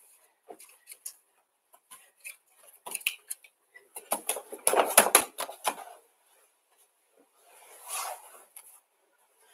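Bare feet stepping and shuffling on judo mats while a homemade gi-clad throwing dummy is gripped, turned into and thrown. Scattered light knocks and slaps run throughout, with a cluster of heavier thuds about five seconds in and a softer rustle near the end.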